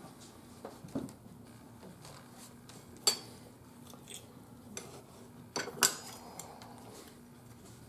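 Clinks and light scrapes of kitchenware: a utensil and hands working pieces of brownie out of a glass baking dish and onto a ceramic plate. There are a few scattered clinks, with a sharp one about three seconds in and the loudest pair near six seconds.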